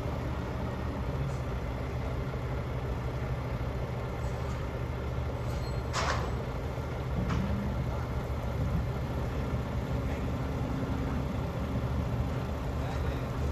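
Mack Granite roll-off truck's diesel engine running steadily at low revs, with one brief sharp noise about six seconds in.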